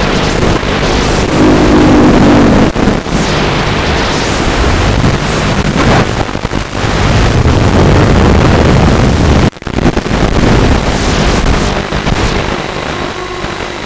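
Walkera F210 racing quadcopter's electric motors and propellers whining loud, their pitch rising and falling with throttle, mixed with wind buffeting the microphone. The sound drops out for a split second about nine and a half seconds in, then resumes.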